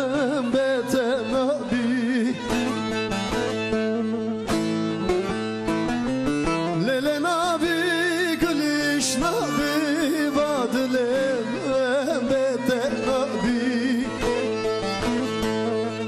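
A man singing a Kurdish folk song in phrases with wavering, ornamented vibrato, over a bağlama (long-necked Turkish lute) playing fast, steady plucked notes.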